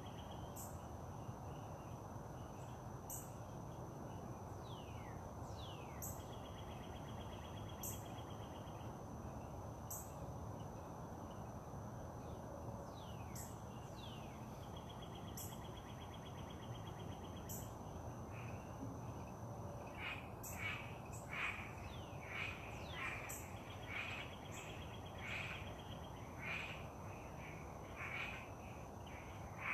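Outdoor dawn chorus: birds calling, with a few falling whistled notes and, from about two-thirds of the way in, one bird repeating a short call about twice a second. A steady high insect drone and short trills run underneath, over a low background rumble.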